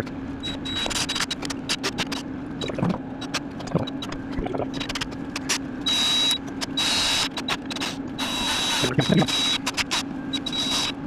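Mechanical work sounds: many sharp metallic clicks and clinks over a steady low hum, with a few short rasping bursts between about six and nine seconds in.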